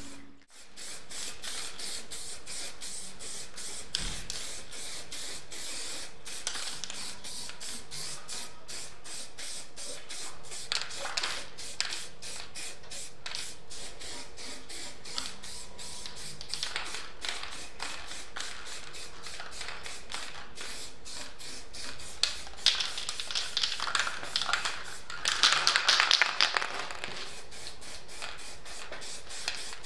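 Aerosol spray paint can hissing in short bursts as light grey paint is sprayed onto steel trike parts, with the longest and loudest burst near the end. A fast, even ticking runs underneath.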